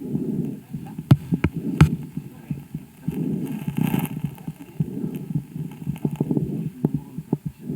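A calf's breath sounds through a homemade stethoscope microphone pressed to the chest, most likely over the left side. A low rushing noise swells and fades with each of several breaths, with a few sharp clicks in the first two seconds.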